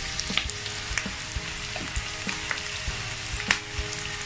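Chopped garlic and onion sizzling in hot olive oil in a pan, with light clicks of a stirring utensil against the pan. There is one sharper knock about three and a half seconds in.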